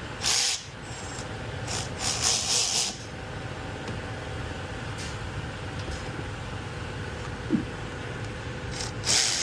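Ratchet wrench with a 14 mm socket running brake caliper bolts in: short runs of clicking in the first three seconds and once more near the end, with a low steady hum between.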